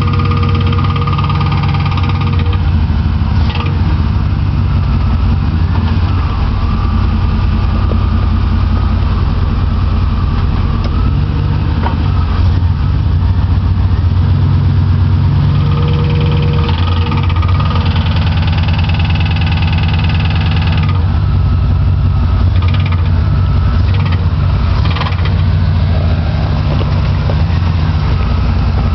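1995 GMC Sierra's 5.7-litre small-block V8 running, with a rapid, steady clicking that the owner hears only with the truck in reverse, sometimes in first gear; its cause is unknown.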